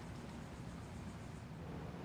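Moss HF100 Heirloom Deluxe ceiling fan running: a steady low motor hum under an even airy hiss.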